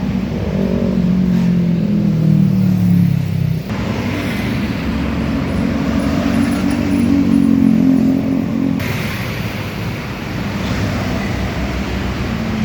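A bus's engine running close by with road noise; its note rises gently in the middle stretch.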